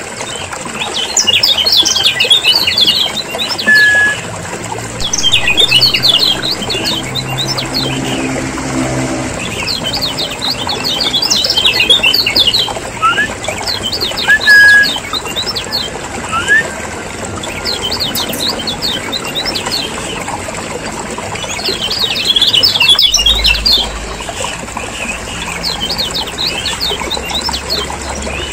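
Kecial kuning, the yellow white-eye of Lombok, chattering busily: fast clusters of high chirps every second or two, with an occasional short whistled note. A low hum runs under it, heavier near the end.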